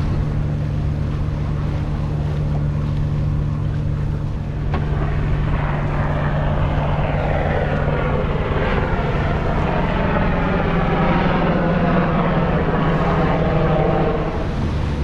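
A helicopter flying past, its rotor and engine sound building from about five seconds in and loudest in the second half, with its pitch bending as it passes. Underneath is a steady low hum, with wind and water noise.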